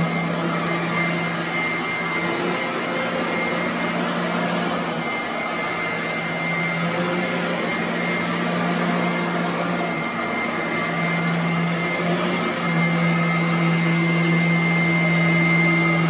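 Royal commercial upright vacuum cleaner running on carpet: a steady motor hum with a high whine over a rush of air, the hum shifting slightly in pitch a few times as it is worked over the floor.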